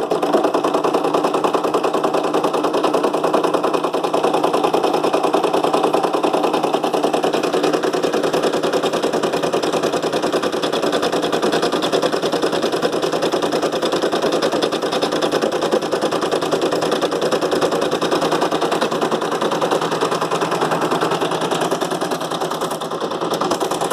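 Brother PE770 embroidery machine stitching a zigzag border: a steady, rapid run of needle strokes.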